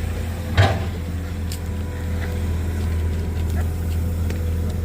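Komatsu PC200-8 excavator's diesel engine running steadily with a low drone, heard from a distance. A single short knock comes about half a second in.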